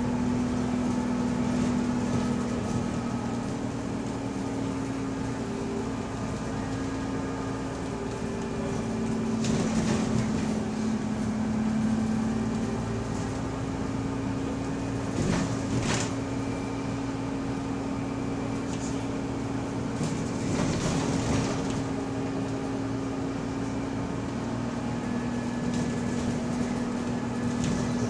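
Interior of a bus on the move: a steady drivetrain hum carrying a held mid-pitched whine, which is subtle and weird and which the recorder takes for a differential noise. A few brief rattles or knocks break through it around a third, half and two-thirds of the way in.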